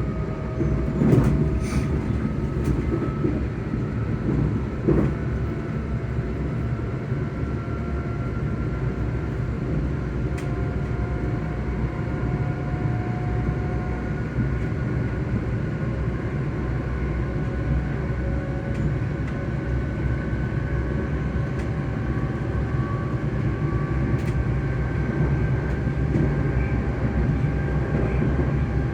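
ScotRail train's electric traction motors humming over the steady rumble of the running train. The hum's pitch rises slowly and evenly as the train gathers speed, with a few light knocks in the first few seconds.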